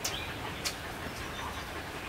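Metal spoon clinking against a small ceramic bowl as it is stirred: a sharp clink at the start, another about two-thirds of a second in, and a fainter one later, over a steady background hiss.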